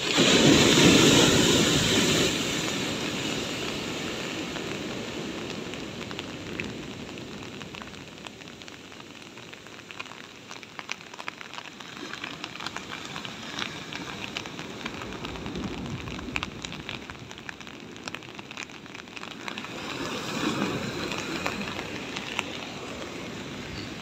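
Heavy ocean surf on a concrete tetrapod breakwater: a big wave crashes about a second in, its roar fading over several seconds, and another surges in near the end. Rain ticks throughout.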